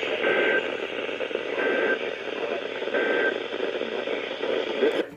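Three short, identical digital data bursts of Emergency Alert System end-of-message (EOM) tones, about a second apart, over steady radio static. They mark the end of a severe thunderstorm warning broadcast.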